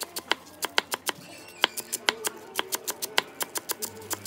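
Knife chopping green onion stalks on a wooden chopping board: quick, even chops, about six a second.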